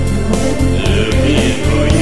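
Background music: a song with a steady drum beat, about four hits a second.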